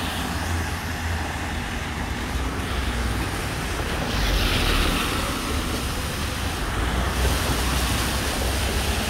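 Steady city traffic on a wet street, with the hiss of car tyres on the wet road swelling as a car passes about four to seven seconds in.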